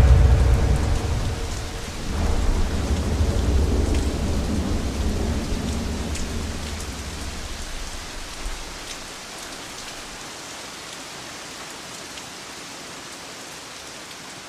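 Rain falling steadily with a long roll of thunder that swells about two seconds in and dies away over several seconds, leaving the rain's even hiss, which fades out at the end.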